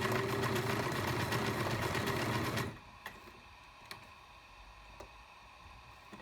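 Singer 5137 sewing machine running steadily at speed, sewing a blind stitch, and stopping abruptly about two and a half seconds in. A few faint clicks follow.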